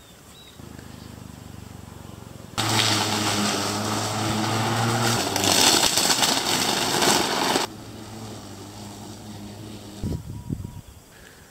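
Electric lawn mower running, with a steady hum that gets much louder for about five seconds in the middle as it cuts through grass, then drops back. A few low thumps near the end.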